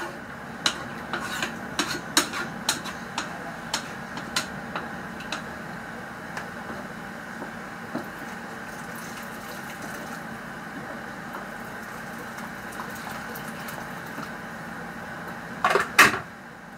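Kitchen utensils and cookware knocking and clinking: a run of light taps over the first several seconds, then a louder clatter near the end, over a steady background hum.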